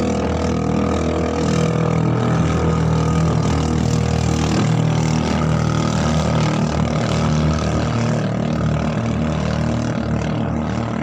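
Engine of a motorized outrigger boat (bangka) running steadily at a constant pace, heard from on board.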